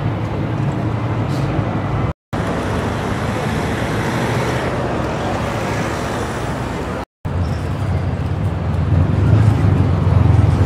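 City street traffic noise, a steady wash of cars and other road vehicles, with a low engine hum from a nearby vehicle growing louder near the end. The sound drops out to silence twice, briefly, about two and seven seconds in.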